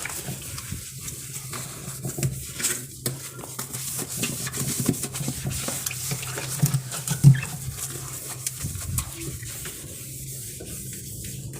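Scattered light knocks and clinks of dishes and containers being handled, with the loudest knock about seven seconds in, over a steady low hum.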